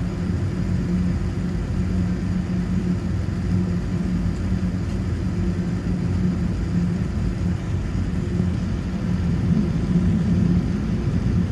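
Steady low vehicle rumble with a low hum, even throughout.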